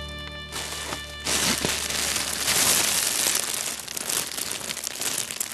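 Nylon cat play tunnel crinkling and rustling as a cat shifts about inside it, starting about a second in and loudest in the middle. A music track is dying away at the start.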